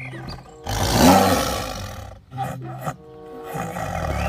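Tiger roaring twice, the first roar about a second in and the second building near the end, over background music.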